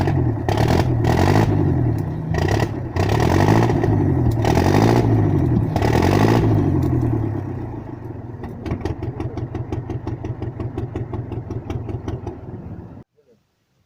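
Small engine of a tracked all-terrain vehicle running, its speed rising and falling several times as it is revved. It then settles into a slower, even pulsing run and stops abruptly near the end.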